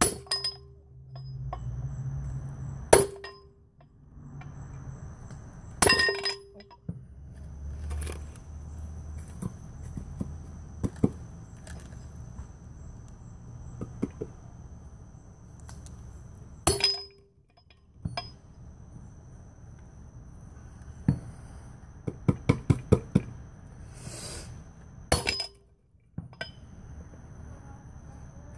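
A big hammer striking a steel driver to drive wheel studs into a GM 14-bolt full-floating rear hub and brake drum: several heavy metallic blows that ring briefly, several seconds apart, with a quick run of lighter taps about two-thirds of the way through. A low steady rumble runs underneath.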